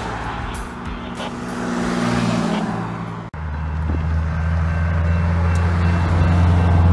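Road noise from inside a moving car. Then, after a cut, a steady low diesel engine rumble from an approaching freight train's locomotives, slowly getting louder.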